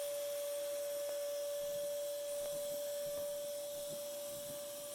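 A single steady beep-like tone, held without a break at one pitch, over a faint hiss.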